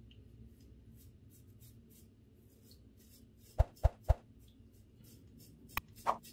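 Faint scratchy crackle of a Derby Samurai 3 Platinum disposable razor scraping through week-long stubble in short strokes. About three and a half seconds in come three sharp knocks in quick succession, and two smaller clicks follow near the end.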